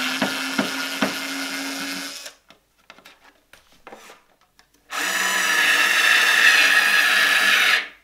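Bosch IXO small 3.6 V cordless screwdriver running in reverse to back out wood screws: a whine of about two seconds with a few clicks, a pause with small clicks, then a second, louder run of about three seconds that stops near the end.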